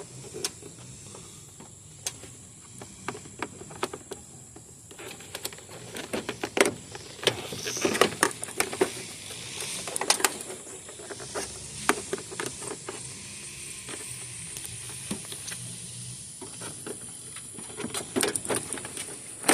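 Hands working a plastic trim piece loose from a car's front end: a scatter of irregular plastic clicks, knocks and scrapes over a faint steady hiss.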